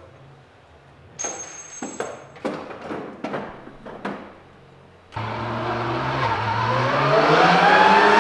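A run of sharp knocks and clicks, then about five seconds in a Porsche 911 Supercup race car's flat-six engine cuts in loud and climbs steadily in pitch as the car accelerates.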